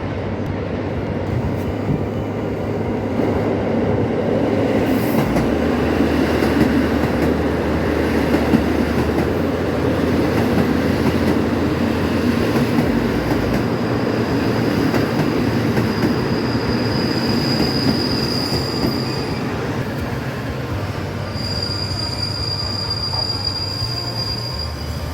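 Train running on rails: a steady low rumble of wheels and running gear that swells in the middle, with a high-pitched wheel squeal in two stretches in the second half.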